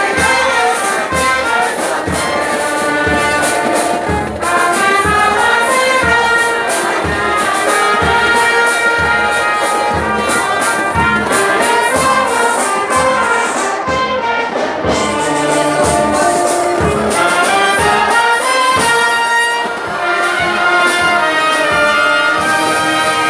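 Military police brass band playing a tune, trumpets and trombones carrying the melody over a steady beat of about two thumps a second.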